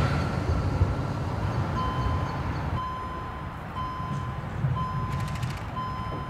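An electronic warning beeper sounding about once a second, each beep about half a second long, starting about two seconds in over a low traffic rumble. At first the steady squeal of a tram's wheels that has just passed fades away, and a brief high rattle comes about five seconds in.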